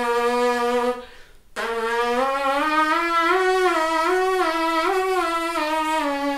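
Trumpet player's lip buzz, the lips buzzing on their own without a mouthpiece, as a brass warm-up exercise. First a held buzzed note that stops about a second in, then after a brief gap a second buzz that glides up and steps up and down through a few neighbouring pitches, like a small scale, before settling back down.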